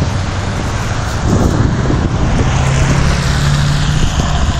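Road traffic on a wet street: cars passing with a steady noise. About two seconds in, a low steady engine hum joins it.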